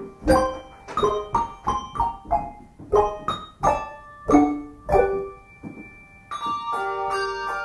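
Handbell choir ringing a lively melody of quick, separate struck notes, each ringing briefly. About six seconds in, a full chord of many bells rings out together and is held.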